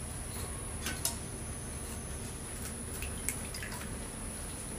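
A knife scraping the scales off a goatfish on a leaf: a few sharp, scratchy clicks, the clearest about a second in and again near three seconds, over a steady background hiss.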